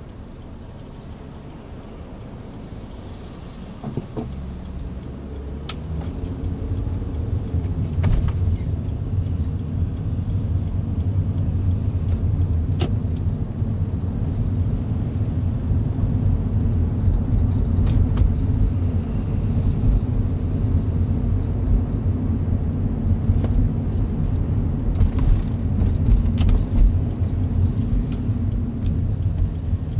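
Car engine and road noise heard from inside the cabin: a low rumble, quieter for the first few seconds, then louder and steady from about six seconds in as the car drives on. A few sharp ticks or rattles come through here and there.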